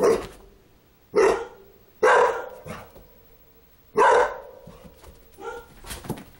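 Dog barking in sharp single barks: four loud ones in the first four seconds, then a few quieter ones near the end. It is a frightened dog barking at a doll it is scared of.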